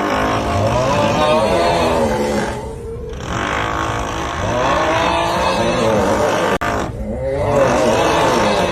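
Meme snoring sound: a loud, drawn-out groaning snore, 'uuuugh', repeating about every three and a half seconds with short breaks between, over a drilling noise.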